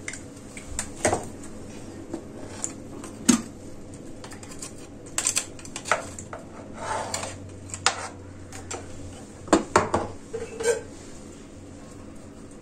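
Kitchen utensils clinking and knocking against a pot and serving dish while thick milk pudding is poured and spread over the dessert: scattered, irregular clinks, with a quick cluster of them about two-thirds of the way through.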